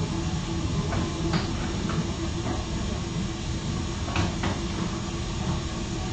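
Steady low hum with hiss, the constant background noise of a room picked up by a live-stream camera's microphone, with a few faint soft rustles about a second in and again around four seconds in.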